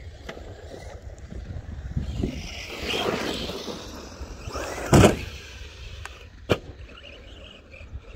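Arrma Senton RC truck driving over rough ground with its differential clicky and damaged, its tyres and drivetrain whirring. A loud thump comes about five seconds in, then a sharp knock a second and a half later.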